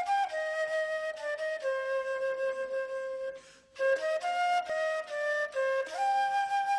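Music led by a flute melody: held notes stepping down and back up, with a short break about halfway through.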